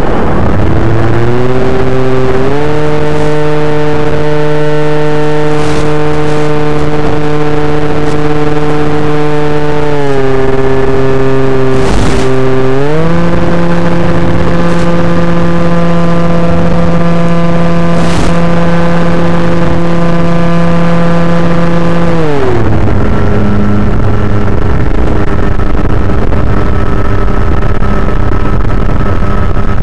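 Electric motor and propeller of an FPV RC plane, heard from on board over heavy wind noise, with a steady droning pitch that follows the throttle. The pitch steps up about a second in, dips briefly around ten seconds, and climbs higher at about thirteen seconds as the plane climbs under high power. It drops back down near the end as the throttle comes off.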